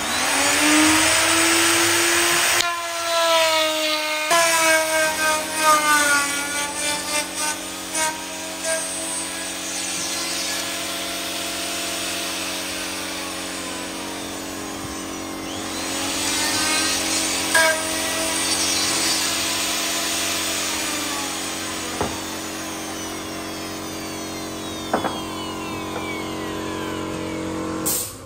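Makita plunge router with an 11 mm bit cutting a groove 11 mm wide and 11 mm deep into the edge of an engineered-wood panel, guided along a jig: a steady high motor whine with cutting noise. The motor spins up at the start and winds down near the end.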